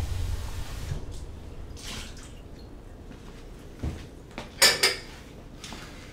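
Dishes being handled at a kitchen sink: a few light knocks, then two sharp clinks close together about four and a half seconds in, the loudest sounds.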